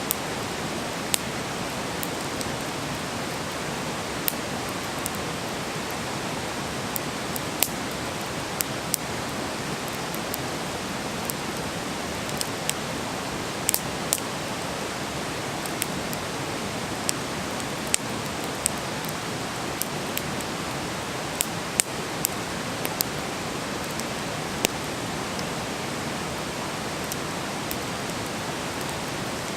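Wood campfire burning: a steady hiss with irregular sharp crackles and pops, one or two a second.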